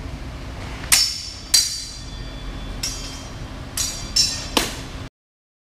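Steel sabre blades clashing in a sparring exchange: about six sharp metal-on-metal strikes, each ringing briefly, the last three in quick succession. The sound cuts off abruptly near the end.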